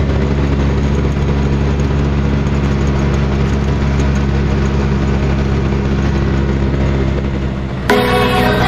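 Auto-rickshaw engine running steadily, heard from inside the cabin while riding. Near the end it cuts off suddenly and music comes in.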